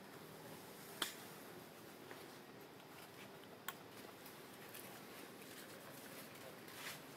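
Faint outdoor background hiss with three sharp clicks or snaps, the loudest about a second in and two weaker ones later.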